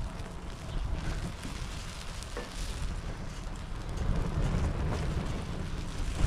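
Banana slices sizzling and bubbling in a rum sauce in a frying pan over a wood fire, a steady crackly hiss with a low rumble underneath.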